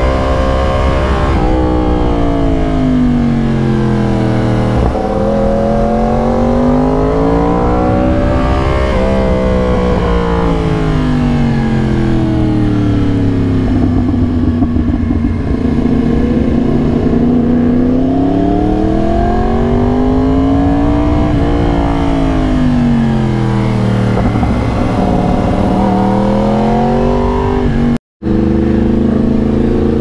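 2022 Yamaha R1's crossplane inline-four running through a raw SC-Project exhaust under way, its revs climbing and falling again and again as the bike accelerates and slows. The sound cuts out for a moment about two seconds before the end.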